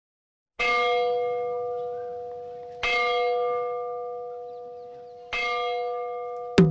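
A bell struck three times at an even, unhurried pace, each stroke ringing on and slowly fading before the next. Right at the end a sharp percussion stroke begins a faster beat.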